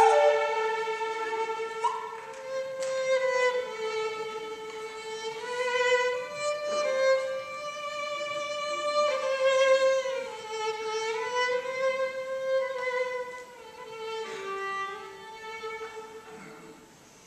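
Solo violin playing a slow, lyrical melody of held notes that slide into one another, growing quieter near the end.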